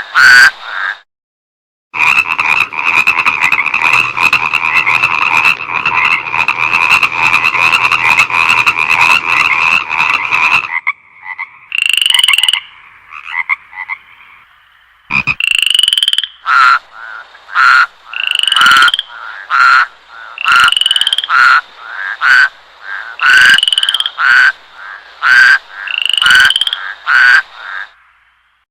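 Frogs calling: a dense, fast-pulsing chorus for several seconds. After a short lull come repeated short croaks, each rising in pitch, about one a second.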